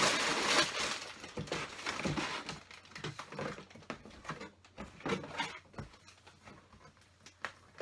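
Plastic bags of LEGO pieces rustling at the start, then scattered light taps and knocks as the bags and a cardboard box are handled.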